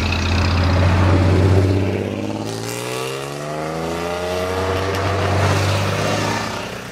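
Classic air-cooled Porsche 911 flat-six engines driving past close by, one after another; about halfway through, one engine rises steadily in pitch as it accelerates, then the sound fades.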